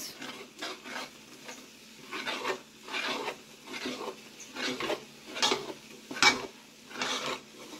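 Thick coxinha dough of chicken broth and wheat flour being stirred hard in a pan on the stove, the scraping strokes coming about one to two a second. Two sharper knocks against the pan come about two-thirds of the way through.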